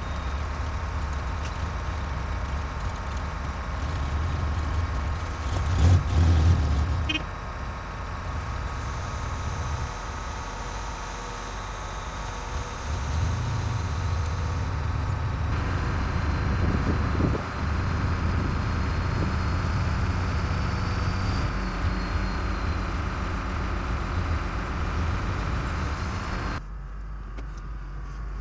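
Motor vehicle engine running steadily, with a louder surge about six seconds in; the sound shifts abruptly several times, as between short clips.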